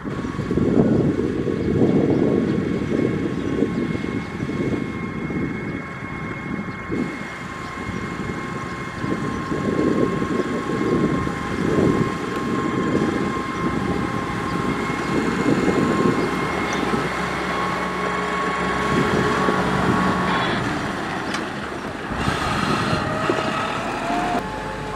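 Caterpillar 140H motor grader at work: a rough diesel rumble that swells and fades, with a steady high whine over it and a short rising tone near the end.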